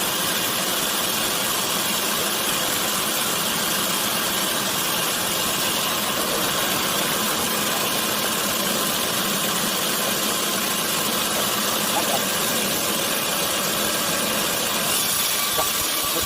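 Sawmill machinery running steadily, a continuous mechanical drone with an even hiss.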